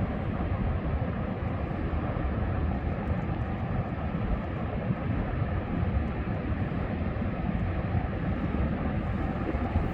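Ocean and wind as a steady, even wash of noise, heaviest in the low end, with no single waves or gusts standing out.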